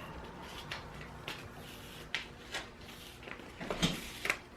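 Handling noises: a series of short, light knocks and clicks, roughly two a second, as things are moved about.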